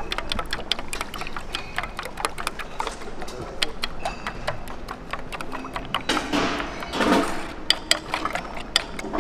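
Raw eggs being beaten with a metal spoon in a stainless steel bowl: quick, irregular clicks and taps of the spoon against the side of the bowl.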